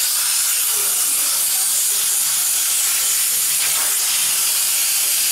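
Compressed-air blow gun hissing steadily as it blows through a Yamaha XMAX 400 air filter element, checking the filter, which is still clean.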